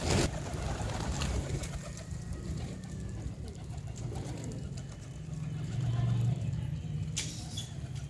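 Flock of domestic Sherazi pigeons cooing steadily while feeding, the cooing swelling about six seconds in. A brief flurry of wing flaps at the start, and another short one near the end.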